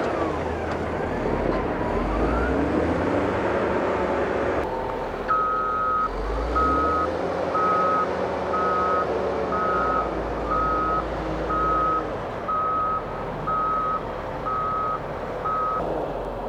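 Heavy construction machine's diesel engine running under load with its pitch rising and falling, then a reverse alarm beeping about once a second over the engine as the machine backs up.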